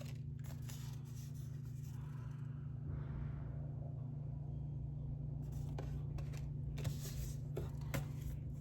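Tarot cards being handled, shuffled and laid down, with soft scrapes and light taps, over a steady low hum.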